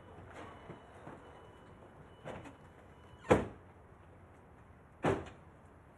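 SUV doors opening with soft latch clicks, then two doors slammed shut about two seconds apart, the first the louder.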